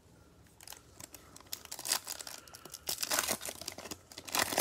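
Bowman Chrome trading-card pack wrapper being torn open and crinkled by hand: a run of crackling rips, the loudest near the end.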